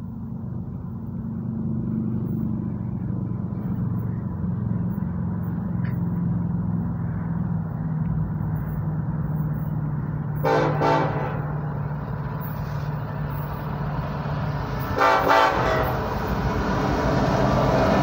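Approaching loaded coal train led by a BNSF EMD SD70ACe diesel locomotive: the locomotives' engines rumble steadily and grow louder as the train nears, and the locomotive horn sounds two short blasts, about ten and fifteen seconds in.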